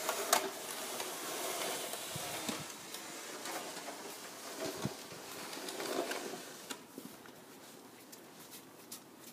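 Snow shovel blade scraping along a concrete driveway as it is pushed through snow, a rough scraping noise that starts suddenly and eases off about seven seconds in.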